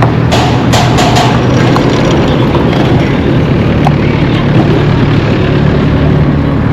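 Street traffic noise with a vehicle engine running close by: a steady low hum under a loud, even rush of noise, with a few sharp clicks about a second in.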